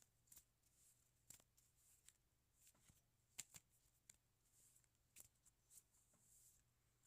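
Magic: The Gathering cards being shuffled by hand: faint, irregular ticks and soft rustles as the cards slide and snap against each other, roughly one or two a second.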